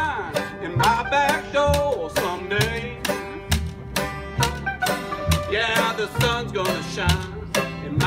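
Old-time string band playing: banjo and guitar over a washtub bass that thumps out a steady bass line, with a wavering lead melody on top.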